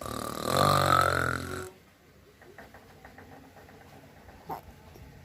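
A loud, rasping snore sound, made once and lasting about a second and a half, right at the start. Small faint sounds follow.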